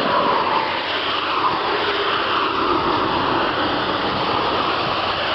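Steady rushing noise of road traffic going by, with no breaks or sharp sounds.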